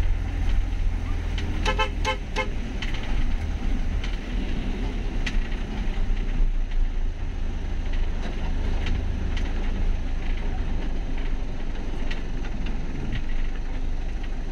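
Low, steady rumble of a vehicle on the move, with a horn tooting a few short beeps about two seconds in.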